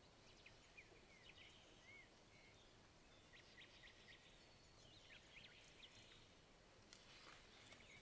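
Near silence in the forest, with faint, scattered high chirps and short calls of small birds, and a single faint click about seven seconds in.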